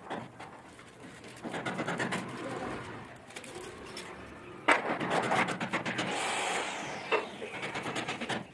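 A small plastic bag of screws crinkling and rustling as it is handled, with small clicks of screws, and a sudden louder crinkle about halfway through.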